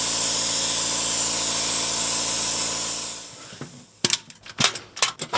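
Disinfectant spray hissing steadily over a low hum for about three seconds, then fading out. About four seconds in, a run of sharp metallic clicks as a wire clip on a stainless-steel UV lamp tower is handled.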